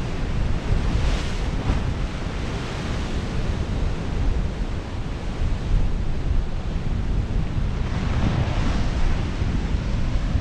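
Ocean surf washing over a volcanic rock shoreline, swelling about a second in and again near the end, with wind rumbling on the microphone.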